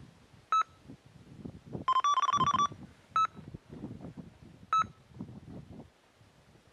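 Electronic carp bite alarm beeping: a single beep, then a quick run of about seven beeps about two seconds in, then two more single beeps. Line is being pulled through the alarm, a fish taking the bait.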